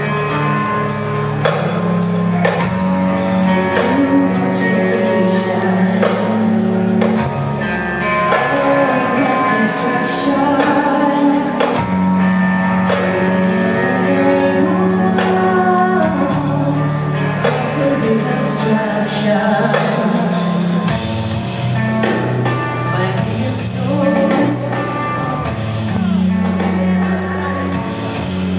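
Metal band playing live, a woman singing into a microphone over electric guitar, bass and drums.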